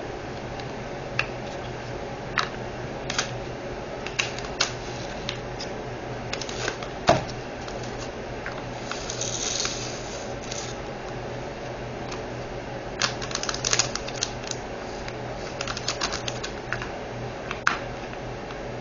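Scattered sharp clicks and taps of small plastic diamond-painting drill containers being handled, with a brief rattle of drills about nine seconds in and denser runs of clicks later on. A steady low hum runs underneath.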